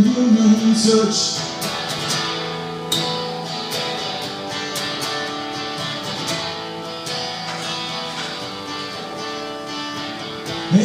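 Acoustic guitar strummed through an instrumental passage of a song. A man's held sung note fades out about a second in, and the guitar chords carry on alone.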